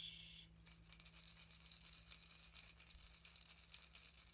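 A maraca shaken very quietly, giving a soft, quick run of small rattles.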